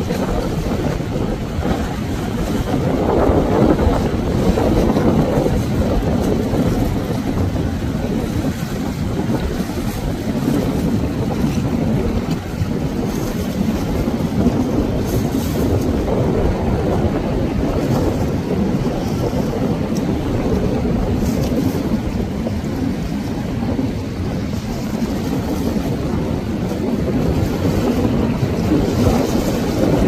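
Small skiff's outboard motor running through choppy, breaking waves, mixed with the rush of surf and wind noise on the microphone.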